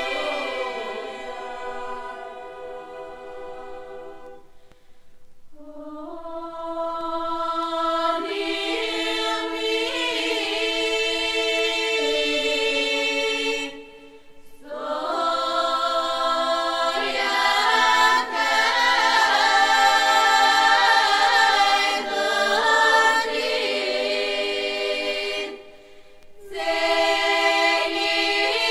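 Bulgarian folk choir singing a choral arrangement of a folk song in long held phrases. The singing breaks off briefly about 5, 14 and 26 seconds in.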